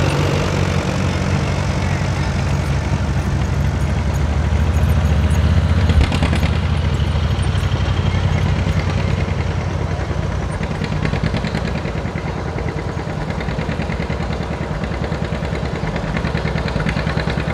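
Engines of slow-moving parade vehicles: a side-by-side utility vehicle runs past at walking pace, loudest about six seconds in, over a steady low engine drone from tractors in the parade line.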